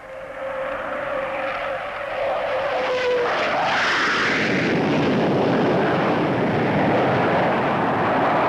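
Vickers Valiant bomber's jet engines flying past: a steady whine that sinks slightly in pitch, then about three seconds in a loud rushing jet noise builds and holds.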